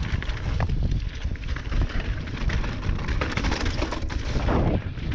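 Mountain bike riding a dirt trail: a steady low rumble of wind on the microphone, with tyre noise on dirt and scattered clicks and rattles from the bike.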